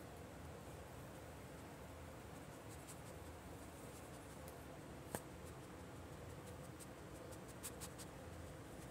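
Faint scratching and ticking as a rat terrier mix noses through a fleece blanket searching for his ball. There is one sharp click about five seconds in and a few more near the end, over a steady low hiss.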